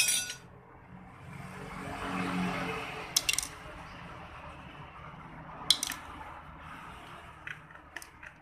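Sharp metallic clinks of hand tools and parts against the bare cylinder head of a Honda Spacy 110 scooter engine during disassembly, a few strikes a couple of seconds apart, with a brief scraping rush about two seconds in.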